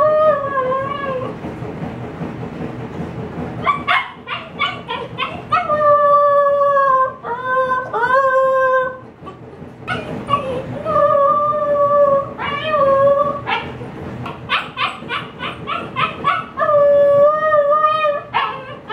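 Siberian Husky puppy howling and yipping: several long, slightly wavering howls of a second or so each, broken by runs of quick yips. It is the distress of a puppy left alone indoors and wanting to get out.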